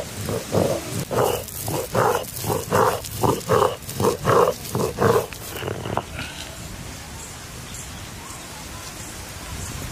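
A cylindrical stone roller rolled back and forth over a stone grinding slab, crushing wet chili paste: a rhythmic rasping rumble of about two to three strokes a second. The strokes stop about six seconds in, leaving a steady faint hiss.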